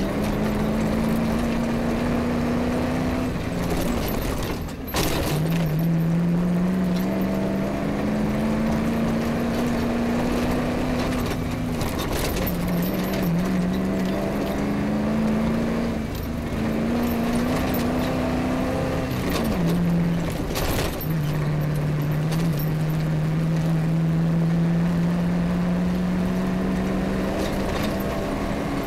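Off-road rally car's engine pulling across rough grassland, its note climbing slowly in each gear and dropping sharply at several gear changes. Occasional knocks and rattles come from the car over bumps.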